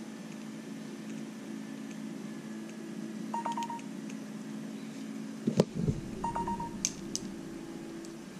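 Small tools and metal shock parts being handled: a few light clicks and one louder knock about five and a half seconds in, over a steady low hum. Two short electronic beeps sound, about three seconds apart.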